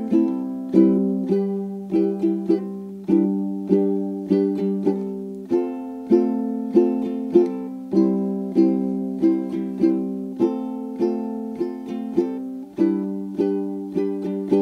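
Background music: light plucked-string tune, notes picked in a steady rhythm about twice a second.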